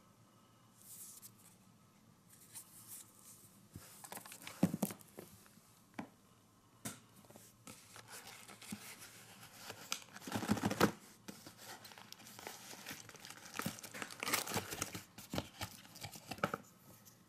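Hands handling cardboard firework boxes and plastic-wrapped packs: irregular crinkling and rustling with small knocks, in bursts, the loudest about ten seconds in.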